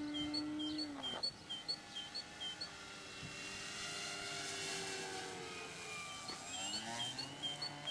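Ampmaster RC pattern airplane in flight, its motor and propeller drone changing pitch as it manoeuvres: it falls about a second in, then rises again near the end.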